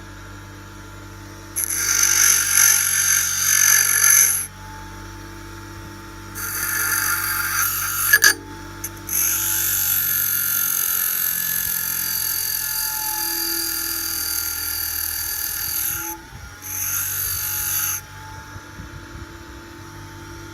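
A RYOBI bench grinder runs with a steady whine, which the owner puts down to its bearings needing replacement. A steel drill bit is pressed against the spinning wheel in several spells of loud grinding: about two seconds in, again around six seconds, a long stretch from about nine to sixteen seconds, and once more briefly near the end. There is a sharp click a little after eight seconds.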